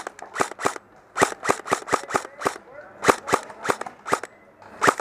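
Airsoft guns firing repeatedly: a string of sharp cracking shots, about three to four a second in quick runs with short pauses between them.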